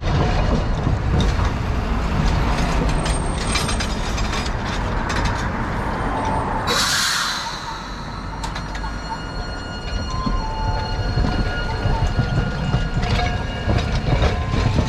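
Hakodate city tram running on its rails, a steady low rumble of wheels on track, with a short hiss about seven seconds in and a faint thin whine later on.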